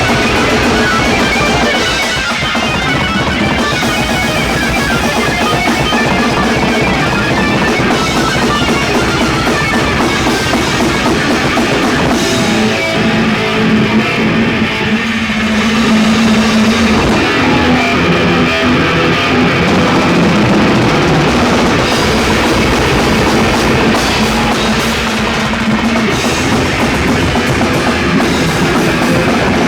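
Live heavy metal band playing: distorted guitars, bass and a fast, dense drum kit, loud and continuous, recorded in a small club.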